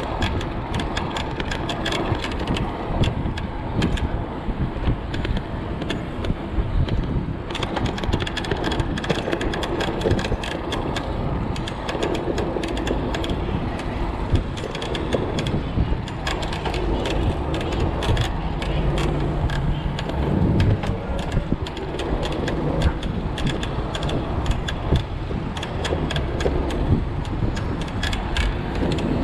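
Riding an e-bike along a city bike lane: a steady low rumble of wind and road noise, with constant rattling and clicking from the bike and its front cargo box over rough pavement, and car traffic alongside.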